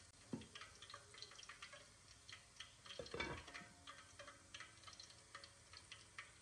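Faint, irregular ticks and pops of mutton broth simmering on a low flame in a clay handi, with a slightly louder knock about three seconds in.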